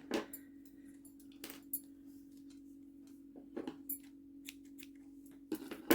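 Crochet tools and yarn being handled: a few scattered light clicks and taps over a steady low hum.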